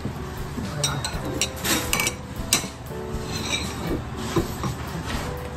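Cats eating wet food from metal bowls: the bowls clink and scrape, with several sharp clinks about two seconds in and again near the end.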